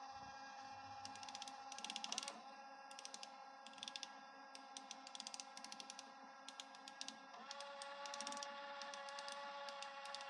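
Disc mechanism of a JVC KD-DV6102 car DVD/CD player, whirring with a faint steady whine and rattling off quick runs of ticks as it reads and seeks a disc; the whine glides to a new pitch about 2 seconds in and again past the middle.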